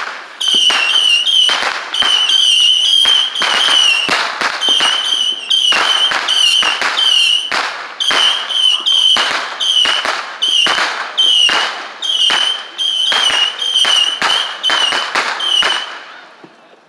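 Fireworks going off in quick succession: a rapid run of loud, sharp bangs, two or three a second, over a steady, wavering high whistle. Both die away about a second before the end.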